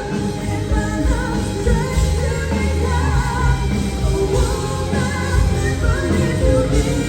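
Live hard rock band playing loud, with heavy drums and bass under a lead melody that bends and wavers in pitch.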